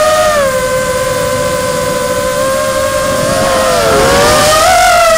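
Small FPV drone's electric motors and propellers whining at a steady high pitch. The pitch splits and dips about three and a half seconds in, then rises again with the throttle, with a rush of air near the end.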